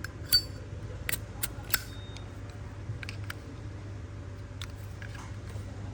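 Sharp metallic clicks of Zippo lighters being handled, four in quick succession in the first two seconds and a few fainter ones later, over a steady low hum.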